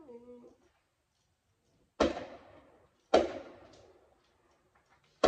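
Fireworks going off outside: three sharp bangs, about a second and then two seconds apart, each dying away over about a second.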